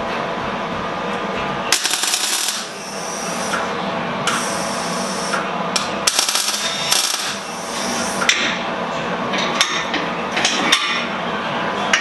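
MIG welder tacking steel suspension brackets: three bursts of crackling sizzle, about one, one and two seconds long, then a few light metallic taps near the end.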